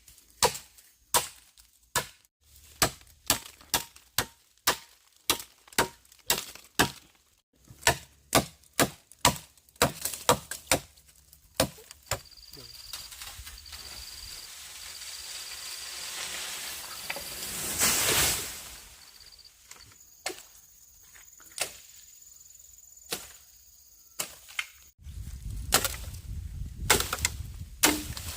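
Bamboo being chopped with a blade: sharp strikes about two a second for the first twelve seconds, then a swelling rush of noise that peaks about eighteen seconds in, then a few scattered strikes near the end.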